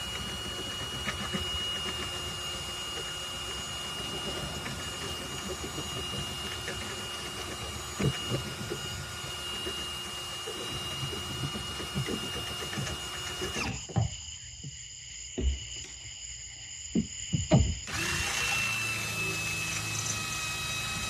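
Power drill running steadily with a high whine, drilling out a stripped screw on a boat's fuel sending unit. The drilling stops about 14 seconds in, a few sharp knocks follow, and it starts again about 4 seconds later.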